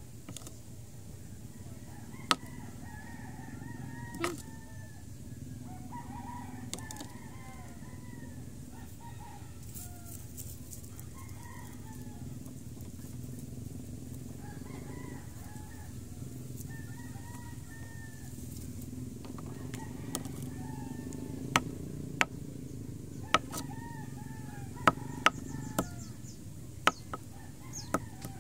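Chickens clucking and calling throughout, over a low steady hum. Sharp taps sound as engorged ticks are crushed on concrete: scattered at first, then more often in the last third and quickening near the end.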